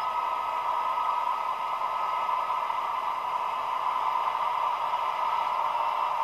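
Recorded diesel engine sound of a DB class 218 locomotive with its MTU TB11 engine, played through a model locomotive's small built-in speaker. It runs steadily, thin and hissy, with most of the sound in a narrow middle band and almost no bass.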